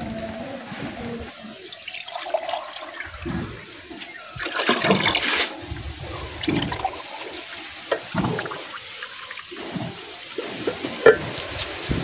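Fermented clove liquid being scooped from an aluminium pot with a plastic cup and poured into water-filled plastic chicken drinkers, splashing in several separate pours, the loudest about four to five seconds in.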